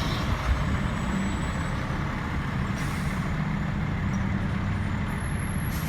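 Heavy road vehicle running: a steady low engine rumble with road noise, and no horn sounding.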